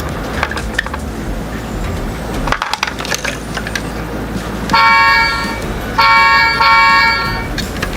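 A few light clicks and rattles, then a horn honking three times: one blast about five seconds in, then two more back to back about a second later.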